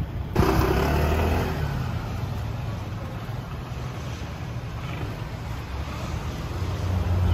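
Small engine of a Honda PCX motor scooter running at low speed on a test ride, a steady low hum that grows louder near the end as it comes closer.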